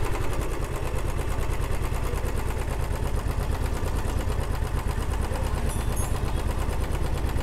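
Royal Enfield Classic 350 BS6 single-cylinder air-cooled engine idling steadily with a regular pulsing beat, just after starting, with its cylinder-head cover off and the rockers and valve gear exposed. The engine has a harsh running noise that the mechanic puts down partly to a worn valve guide.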